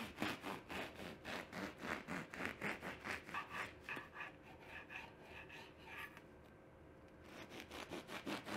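A knife sawing back and forth through a firm-crusted loaf of low-carb bread on a wooden cutting board: fast, even rasping strokes, about six a second. They fade and stop for about a second two-thirds of the way through as a slice comes free, then start again near the end on the next slice.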